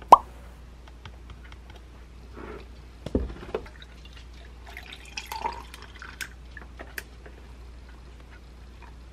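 Milk poured from a paper carton into a tall glass, the pour's tone rising slightly as the glass fills. A sharp snap right at the start as the carton's spout is pulled open, and a dull knock about three seconds in.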